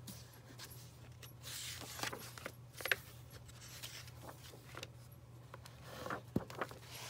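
Pages of a hardcover picture book being turned by hand and brushed flat: soft paper rustles and light taps, a cluster around two to three seconds in and another about six seconds in, over a faint steady low hum.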